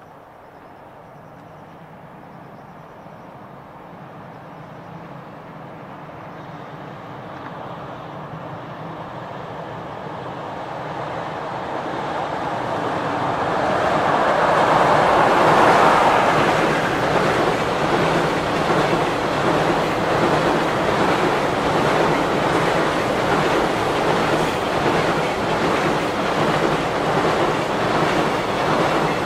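Container freight train hauled by an electric locomotive, approaching across a steel girder bridge and growing steadily louder until the locomotive passes about halfway through. After that come the container wagons' wheels clattering over the rail joints in a steady, rapid rhythm.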